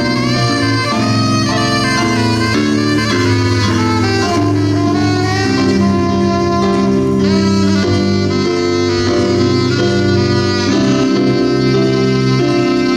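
Live jazz band playing at a steady level, a melody line moving over a low bass line.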